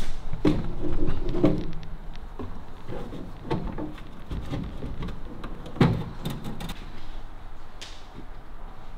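Irregular knocks, clunks and scrapes of a wooden dashboard being handled and pushed into place against the car's body, with a sharp knock nearly six seconds in.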